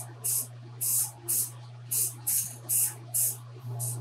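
Aerosol spray can of grey paint spraying in short bursts, about two a second, over a steady low hum.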